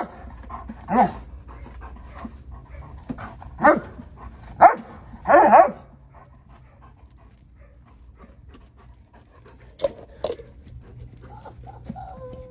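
A dog vocalizing: about five short, high-pitched calls in the first six seconds, the last one a little longer, then two fainter calls about ten seconds in.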